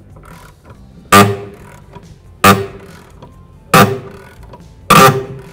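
Rusted rear upper control arm inner bolt on a Hyundai Sonata creaking as it is loosened with a long-handled ratchet: four loud, sharp, ringing creaks about a second and a quarter apart, one for each pull on the handle.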